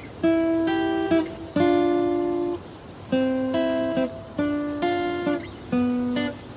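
Background music: an acoustic guitar strumming chords, each struck chord ringing and fading before the next.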